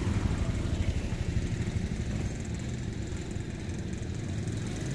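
An engine running at idle: a steady low rumble.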